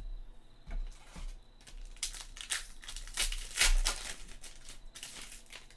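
Foil wrapper of a trading card pack being crinkled and torn open by hand: a few light clicks, then a run of crackling from about two seconds in to about five seconds, loudest in the middle.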